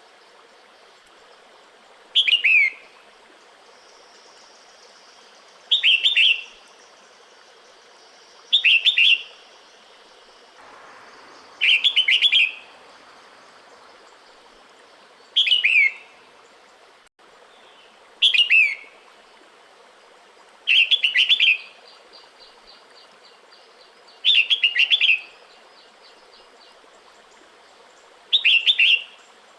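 Female red-whiskered bulbul giving short calls that fall in pitch, repeated about every three seconds over a steady background hiss: a female's call to a male in the breeding season.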